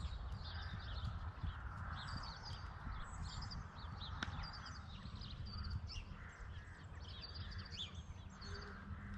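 Small birds chirping and twittering in many short, high notes, over a steady low rumble of outdoor background noise.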